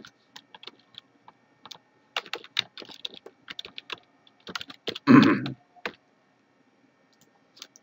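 Typing on a computer keyboard: a run of quick keystrokes as a name is typed in, with one louder half-second sound about five seconds in. The typing stops about six seconds in.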